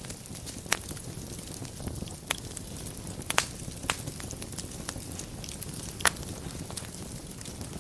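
Wood fire burning in a fireplace: a steady low rumble of flames with scattered sharp crackles and pops. The loudest pops come about a second in, around three and a half seconds in, and about six seconds in.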